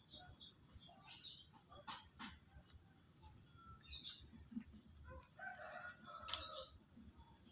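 Faint bird calls: short high chirps, then a longer crow-like call about six seconds in, with two light clicks around two seconds in.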